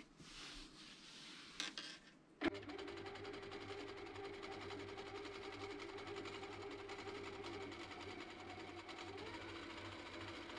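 Sewing machine starting with a click about two seconds in, then stitching steadily through a quilted fabric pad with a rapid, even stitch rhythm over a steady motor hum.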